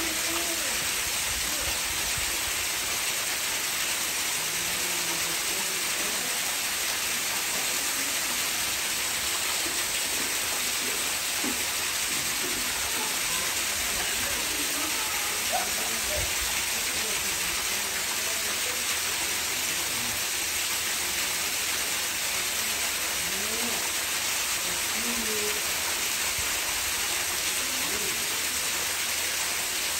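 Steady rushing noise at an even level, like running water, with faint voices of people here and there.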